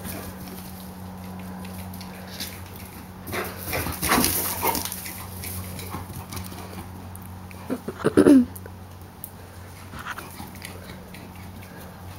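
Black Labrador retriever barking: one burst about four seconds in, then a quick run of short barks about eight seconds in, the last and loudest falling in pitch.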